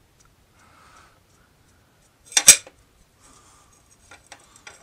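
A metal wind-generator housing being handled on a wooden table: one sharp knock and clatter about halfway, then a few light clicks as hands work at its back cover.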